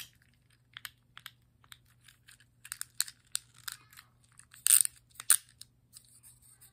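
Black-and-green plastic fidget cube being worked by hand: irregular small clicks of its buttons and switches, with two louder clacks about five seconds in.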